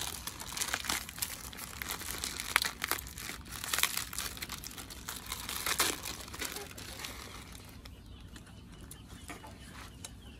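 Plastic instant-noodle wrappers and seasoning sachets crinkling and being torn open, with sharp crackles through the first six or seven seconds, then quieter handling.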